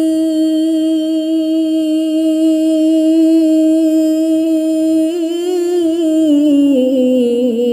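A man's solo voice singing a naat (Urdu devotional verse) and holding one long note for about five seconds. The note then wavers and slides down in pitch near the end.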